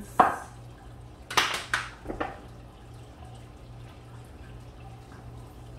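A few sharp knocks and clatters of bowls and kitchen items being set down and handled on a stone countertop: one just after the start, a quick cluster about a second and a half in, and one more shortly after. A steady low hum runs underneath.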